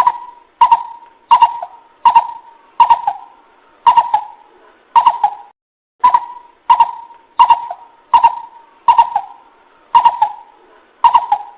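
Coucal lure call: a steady series of short, hollow hoots at about one and a half per second, with a brief pause about halfway through.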